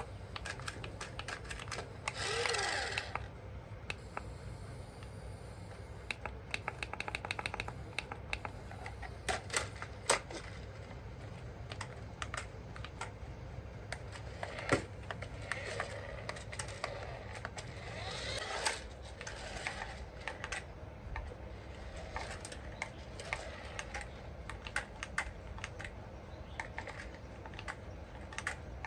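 Irregular light clicks and taps, like small plastic toy parts and packaging being handled, over a steady low hum.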